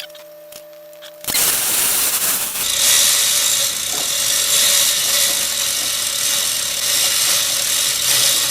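A power tool starts about a second in and runs steadily for about seven seconds with a harsh, hissy whir.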